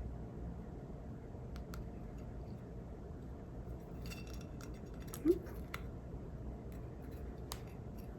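Light clicks and clinks of small metal mixer parts being handled, with a cluster of clicks in the middle and a brief rising squeak about five seconds in.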